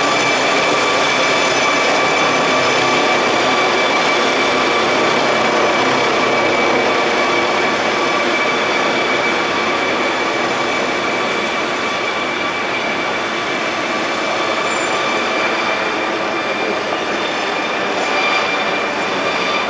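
MD 902 Explorer air ambulance helicopter climbing away overhead after take-off. A steady high turbine whine sits over dense rotor and engine noise, growing slightly fainter after about ten seconds as it gains height and distance.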